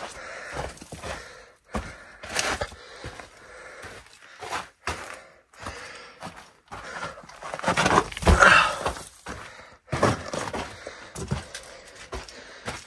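Footsteps and scuffs on gravel and crumbly sandstone as a hiker makes his way down a narrow slot canyon: uneven steps and scrapes, with a louder scramble past the middle.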